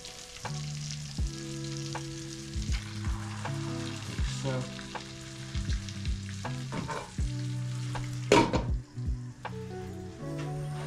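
Turbot fillet frying skin-down in hot butter, sizzling in the pan, with scattered sharp clicks and one loud knock about eight seconds in. Background music with steady low notes that change every second or so plays over it.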